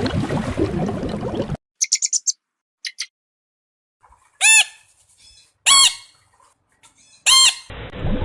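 Animal calls, bird-like: a dense chattering that cuts off abruptly, then a quick run of high chirps and three loud squawks about a second and a half apart.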